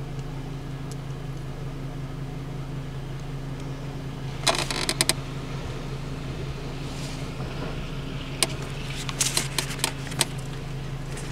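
Steady low hum inside a stopped vehicle's cabin, with short bursts of rustling and clicks from the paper citation and camera being handled, once about four and a half seconds in and again from about eight and a half to ten seconds in.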